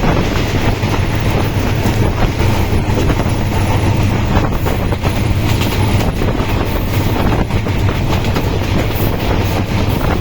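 Loud, steady rumbling and rattling of a moving vehicle, with a dense run of small clicks.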